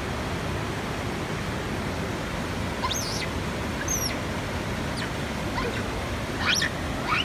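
Steady outdoor rushing noise with about five short, high chirping calls scattered through it, the first about three seconds in.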